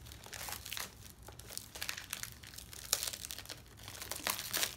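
Clear plastic wrap crinkling and tearing as it is pulled off a coil of cable. It is a string of irregular crackles, with a few sharper ones about three seconds in and near the end.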